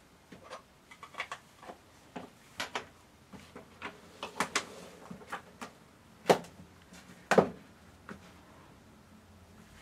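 Irregular clicks and knocks of small objects being picked up and set down on a dressing table, about a dozen in all, with two louder knocks near the end.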